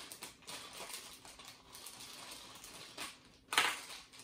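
Plastic syringe packaging being handled and opened by hand: crinkling and small clicks, with one louder rustle about three and a half seconds in.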